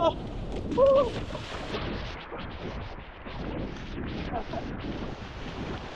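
A person splashing at a run into shallow sea surf, with wind rumbling on the microphone and waves washing around. A brief vocal cry comes just under a second in.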